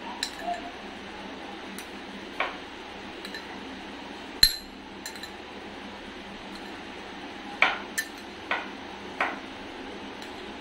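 A metal spoon clinking and scraping against a small glass bowl as melted ghee is spooned out, about eight separate clinks, the sharpest about four and a half seconds in.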